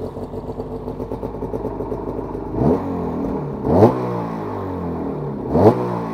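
Arctic Cat Catalyst ZR 600 snowmobile's 600cc two-stroke engine idling just after start-up, with three quick throttle blips about two and a half, four and five and a half seconds in, the revs snapping up and dropping straight back to idle.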